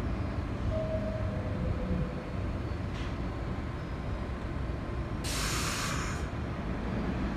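6 train subway cars on an elevated track, rumbling steadily, with a sudden hiss of air from the train's brakes about five seconds in that lasts about a second.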